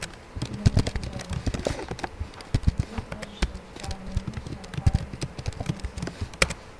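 Computer keyboard keystrokes: irregular clicks of typing, some in quick runs and some single, over a steady low hum.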